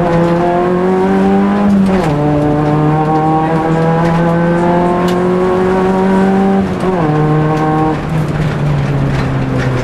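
Rally car's engine heard from inside the cabin, accelerating hard through the gears. The revs climb, drop sharply at an upshift about two seconds in, and climb again until a second upshift near seven seconds. The engine then eases off towards the end.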